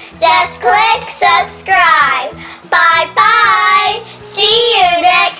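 Young girls singing a sing-song outro tune in short phrases of held notes that slide in pitch.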